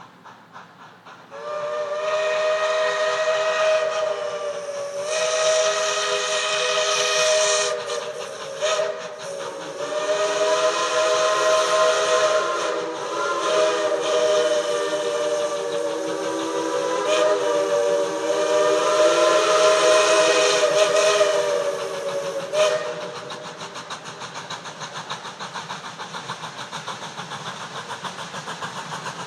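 Steam whistles of a narrow-gauge doubleheader steam train sounding long blasts, several notes at once, with short breaks about 5 and 9 seconds in and a lower note joining about 10 seconds in. The whistling stops sharply a little after 22 seconds, and the quieter, steady running of the approaching train carries on.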